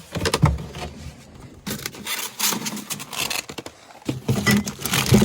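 Scraping, rubbing and light knocking of objects being handled, with irregular clicks; a low steady hum joins about four seconds in.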